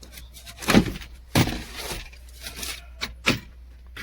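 Truck cab cover panels being pulled off and handled: a series of clacks and knocks, three of them louder than the rest.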